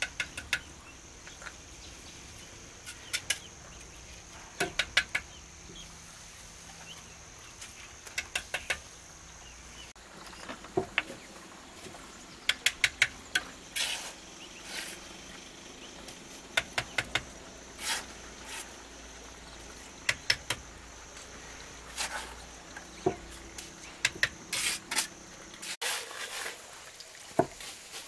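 Stones knocking together as they are handled and stacked: quick clusters of sharp clicks every second or two.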